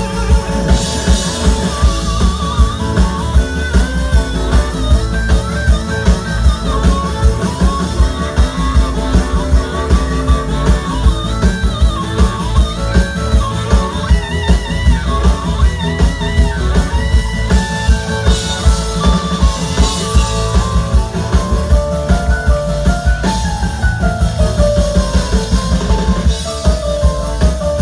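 Live band playing amplified rock-style music: drum kit keeping a steady beat under guitars and a melody line.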